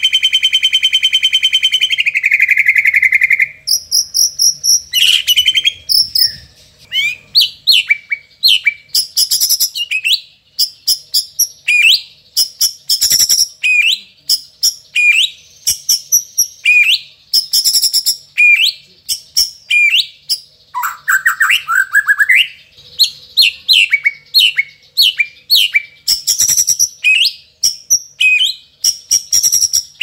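White-rumped shama singing: it opens with a buzzing, cricket-like trill, one of the mimicked fills in its song, then breaks into a long run of short, sharp whistled notes, most dropping quickly in pitch, delivered in rapid clusters.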